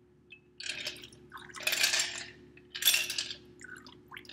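Stirred bourbon cocktail being strained from a glass mixing glass into a rocks glass over a large ice ball: liquid pouring and splashing in about four surges, with light clinks of glass and ice.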